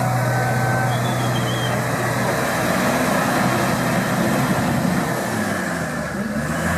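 Off-road 4x4 vehicle engine running under a steady wash of noise, its pitch rising and falling in the last couple of seconds as the revs change.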